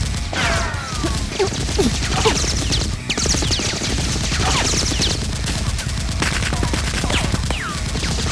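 Sustained rapid gunfire sound effects, a dense fusillade of shots, with many short falling whines scattered through it.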